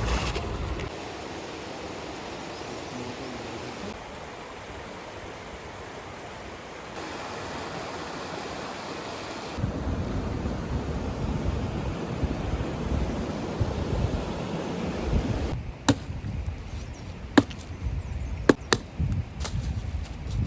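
Outdoor noise with wind rumbling on the microphone, changing abruptly several times, with a handful of sharp knocks in the last few seconds.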